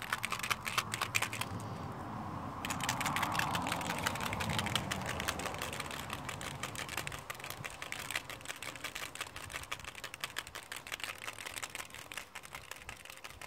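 Small plastic sample bottle of a European foulbrood test kit shaken hard by hand: a fast, continuous run of light clicks and rattles, mixing the scraped brood sample into the extraction solution.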